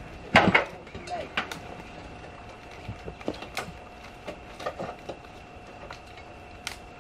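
Hand tools knocking and clinking in scattered strikes, the loudest pair about half a second in, over a faint steady tone.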